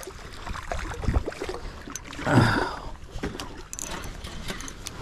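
Hooked striped bass splashing at the surface beside a kayak, water sloshing against the hull, with a louder surge a little past halfway and a few light clicks of tackle.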